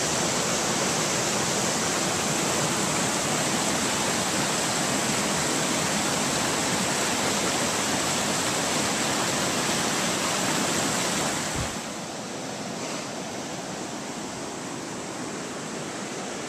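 Rushing water of a river running over falls and rapids, a steady even rush. About two-thirds of the way in there is a brief low thump, and the rush drops suddenly to a quieter level.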